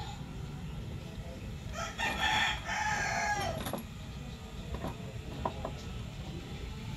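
A rooster crows once, about two seconds in, a pitched call lasting nearly two seconds that falls away at the end. A few light clicks follow.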